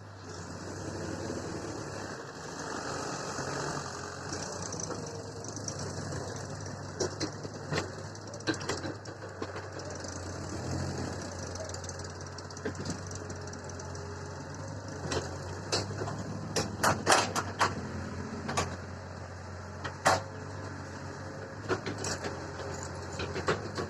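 Heavy machinery diesel engine running steadily, with scattered sharp knocks and a cluster of louder knocks about two-thirds of the way in.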